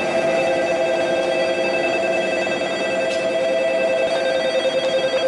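Railway station departure bell: an electric bell ringing continuously on one steady pitch, the signal that a train's doors are about to close. It cuts off suddenly just after the end.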